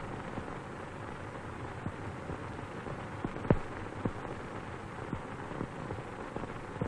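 Steady hiss with scattered crackles and pops from an old optical film soundtrack, with a sharper pop about three and a half seconds in and another soon after.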